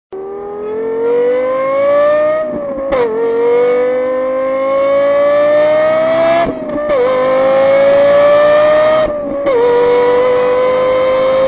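Lexus LFA's V10 engine accelerating hard at full throttle, its pitch rising steadily through the gears. Three quick upshifts, about three, six and a half and nine and a half seconds in, each bring a short dip in pitch before it climbs again.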